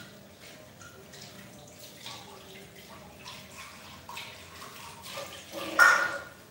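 Water splashing and dripping, with scattered small knocks and one louder splash or clatter about six seconds in.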